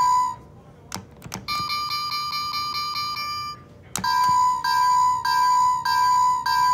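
A toy railroad crossing's electronic bell dinging steadily, a little under twice a second. It stops, and a few sharp clicks of its button follow. A faster, slightly higher electronic ringing then plays for about two seconds. After another click near the middle, the steady dinging starts again.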